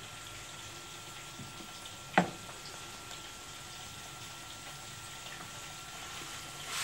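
Low steady hiss of floured pejerrey fillets frying in oil in a pan on a gas stove, with one sharp click about two seconds in.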